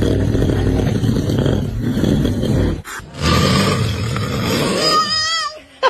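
Baby snoring, loud and roar-like: two long rough snores, the second ending about five seconds in with a rising, whistling note.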